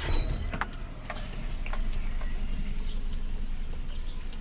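Hyundai Eon's engine running at idle just after being started, with a few light clicks in the first two seconds.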